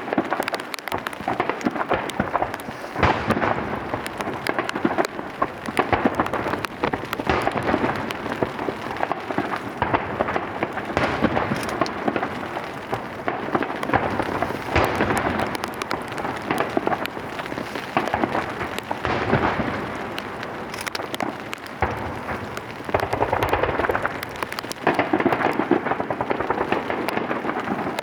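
Starmine fireworks barrage: shells launched and bursting in rapid succession, a dense, unbroken run of booms and crackling with no pauses.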